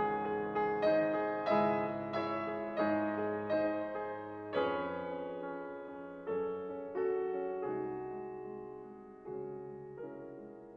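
Slow solo piano music, notes and chords struck and left to ring and fade. After about four seconds the notes come further apart and grow quieter.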